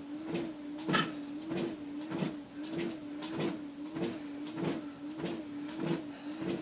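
Treadmill running at a slow walking pace: a steady motor whine that wavers in pitch with each step, and regular footfalls on the belt about every 0.6 seconds.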